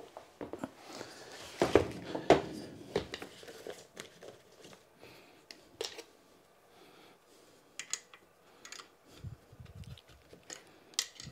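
Scattered clicks, knocks and light rattles of bicycle repair stand parts being handled and fitted together by hand, a short cluster of louder knocks about two seconds in, then sparse ticks.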